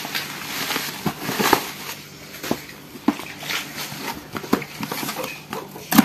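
Black bubble-wrap packaging being torn open and pulled off a cardboard box, crinkling and rustling with irregular crackles; the sharpest crackle comes near the end.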